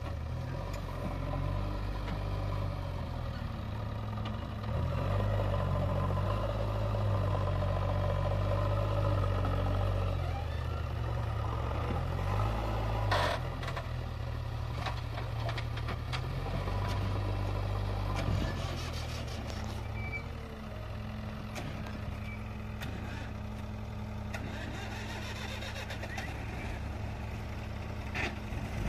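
JCB 3DX backhoe loader's diesel engine working as it scoops and lifts a bucket of mud. It runs louder for several seconds under load and eases off after about eighteen seconds. There is a sharp clank about thirteen seconds in.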